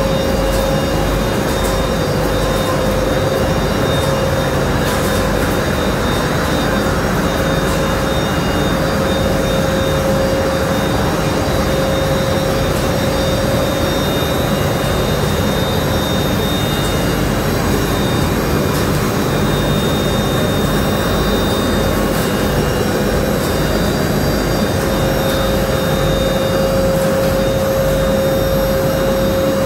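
Pieralisi olive-oil mill line running while olives are processed: a steady, loud mechanical drone with a constant whine over it.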